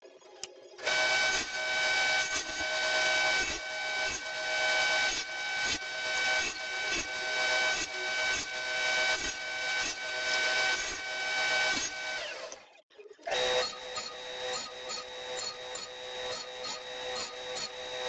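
Table saw running through a series of repeated cuts in pine strips, the sound swelling and falling about every three-quarters of a second. It breaks off briefly about two-thirds through, then the saw runs again at a different pitch with a quick, regular ticking.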